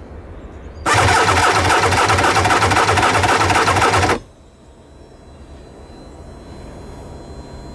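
The electric starter cranks the 1998 Tigershark TSR 1000's three-cylinder two-stroke engine over for about three seconds, with a steady chugging pulse of about four beats a second, then stops suddenly. This is a compression test on the PTO cylinder, which reads about 135 psi.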